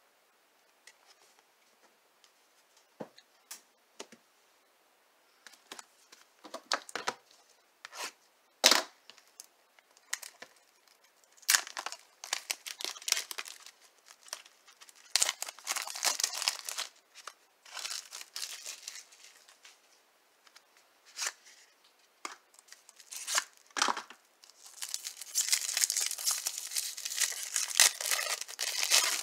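Clear plastic wrapper of a trading-card pack being torn open and peeled off the cards, crackling in short bursts from about five seconds in, then crinkling steadily near the end as the cards are pulled out of the wrap.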